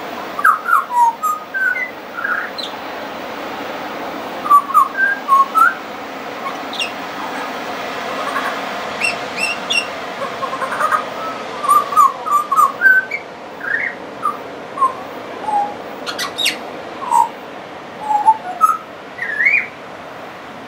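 Pied butcherbird singing: a long run of clear, whistled notes and short pitch glides, given in phrases with brief pauses between them.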